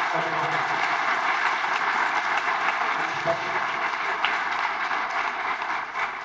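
Audience applauding: a dense, steady clapping that slowly dies down toward the end.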